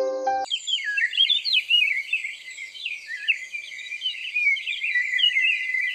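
Many small birds chirping and twittering over one another, a dense, high chorus. A musical phrase ends about half a second in.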